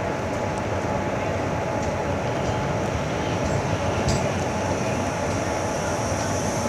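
Passenger express train rolling on the rails, a steady rumble and hiss with a faint steady tone and a few light clicks.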